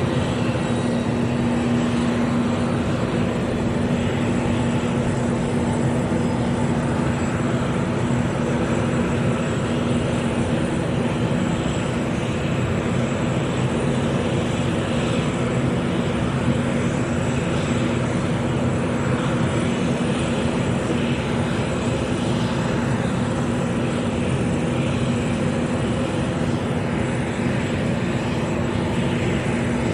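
Jet aircraft engines idling: a steady, unchanging rush of engine noise with a constant low hum.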